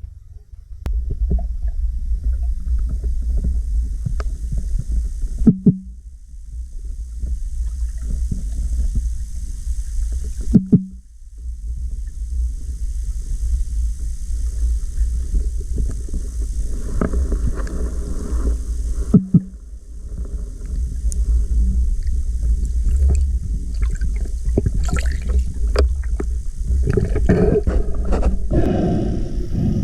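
Underwater sound through a diving camera: a steady low water rumble with scattered small clicks and taps. It drops out briefly three times, each time with a soft thump. Near the end it grows louder and fuller.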